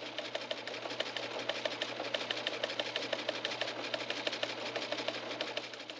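A small machine clattering: fast, even mechanical clicking over a steady low hum, fading out near the end.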